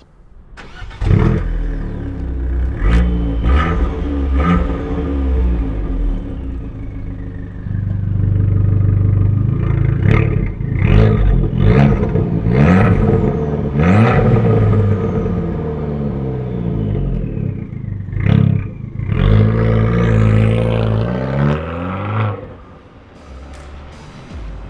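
Abarth F595's 1.4-litre four-cylinder turbo petrol engine starting about a second in and running through its Monza sport exhaust, then revved hard several times, the pitch rising and falling with each rev. Near the end the sound drops away.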